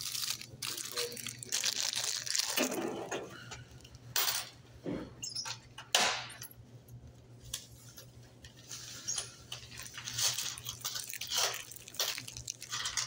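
Irregular rustling and crinkling handling noises at a shop checkout counter, in short bursts, over a steady low electrical hum.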